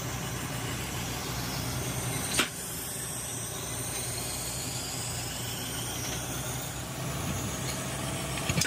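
Workshop machine running steadily with a low hum, with one sharp click about two and a half seconds in.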